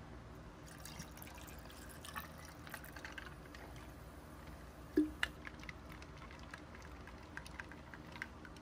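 Sparkling water poured from a plastic bottle into a glass over ice, splashing and fizzing. About five seconds in comes one sharp clink on the glass, then scattered small fizz pops and crackles as the bubbles settle.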